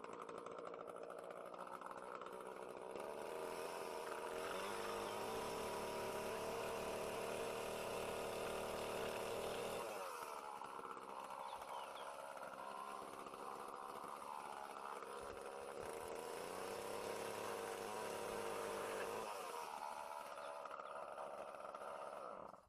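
Petrol chainsaw running while cutting wood, its engine note rising and falling as the throttle is worked. It runs louder for several seconds near the start and again in the second half, then stops abruptly at the end.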